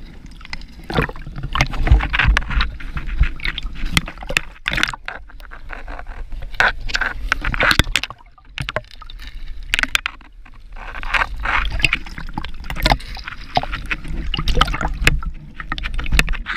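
Water splashing and sloshing close by in irregular bursts, with a heavy low rumble, as a person swims through it.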